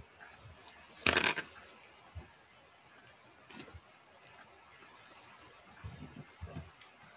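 Loose sheets of paper rustling as they are moved and laid on a sketchbook on a desk, with one loud rustle about a second in and a few soft thumps of the paper and hand on the desk near the end.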